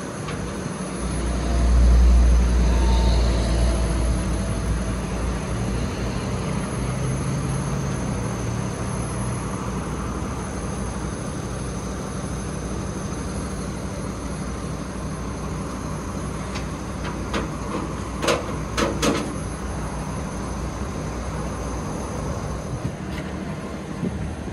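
Flatbed tow truck's engine running steadily, with a heavier low rumble in the first few seconds. A cluster of sharp knocks comes about eighteen seconds in.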